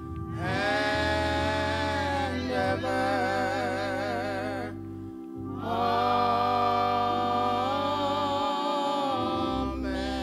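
Gospel singers holding long notes with vibrato over steady low accompanying tones. The singing breaks off briefly about five seconds in, then resumes.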